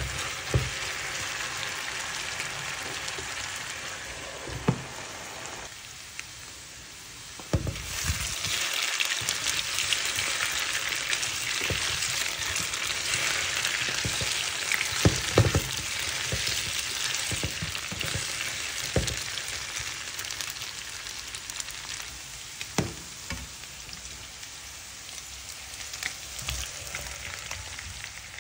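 Diced potatoes sizzling in hot oil in a frying pan, stirred with a wooden spatula that knocks against the pan now and then. The sizzle grows louder about eight seconds in and eases off again later.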